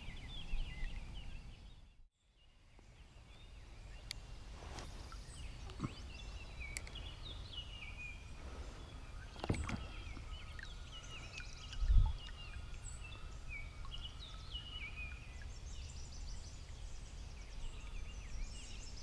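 Many small birds singing and chirping over a low outdoor rumble, with a few sharp clicks and a single dull thump about midway. The sound drops out briefly about two seconds in.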